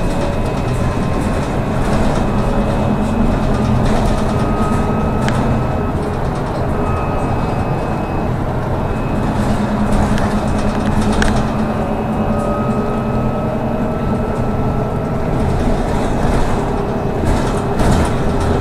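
Trolleybus running, heard from inside the cabin: the electric traction drive gives a whine that rises slowly in pitch a few times as it picks up speed, over steady rumble and road noise.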